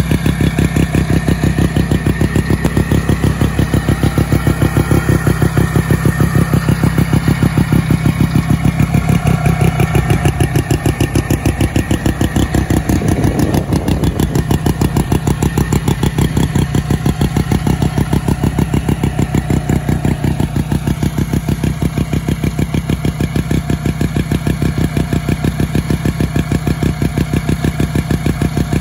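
1971 Arctic Cat Panther snowmobile's 303 Wankel rotary engine idling steadily with a fast, even pulse.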